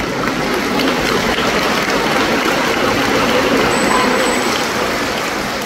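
Continuous splashing of pool water as several bottlenose dolphins, head-down in the water, beat their raised tail flukes at the surface; a steady, even rush without pauses.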